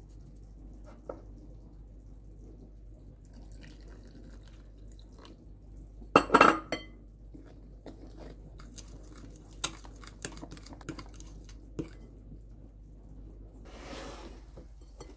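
A fork stirring flour and egg in a glass bowl. About six seconds in, water is poured in with a brief louder splash. The fork then clinks against the glass again and again as it whisks the mix into a batter.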